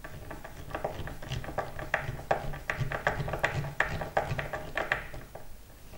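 Hand screwdriver driving a small screw through a Floyd Rose-style locking nut into a hard maple neck: a run of small irregular clicks and creaks, about three a second.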